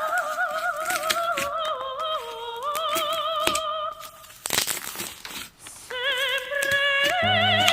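A soprano singing operatically with wide vibrato, over the crackling and clicking of slime being handled. About four seconds in, the singing stops for a couple of seconds, leaving only the slime's crackles, then comes back.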